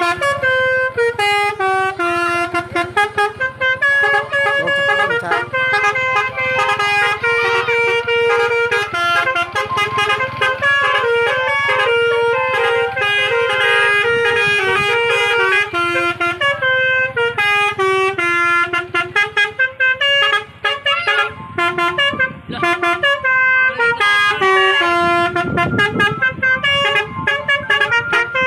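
Basuri musical horn on a bus playing a fast tune, its notes stepping up and down with hardly a break. A low steady rumble runs underneath and swells near the end.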